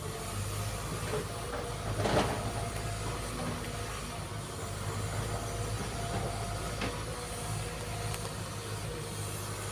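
Sumitomo SH210 hydraulic excavator running steadily, with a loud metallic clank about two seconds in and a lighter knock near seven seconds.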